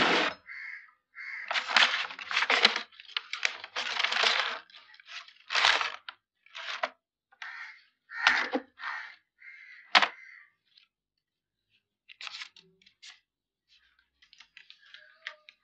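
Papers, envelopes and CD cases rustling and shuffling in a wooden desk drawer as a hand searches through them, beginning with a loud thump and broken by a few sharp knocks; it goes almost quiet after about eleven seconds.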